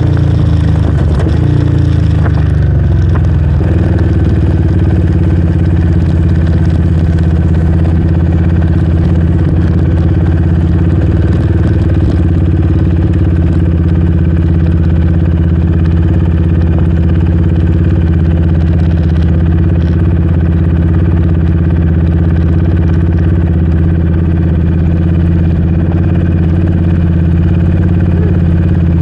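Yamaha Raptor 700R's single-cylinder four-stroke engine falling back over the first three or so seconds, then idling steadily.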